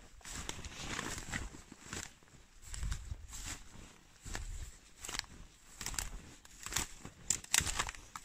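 Footsteps walking through dry grass and dead leaves, crunching and rustling about once a second, with a few sharper twig cracks near the end.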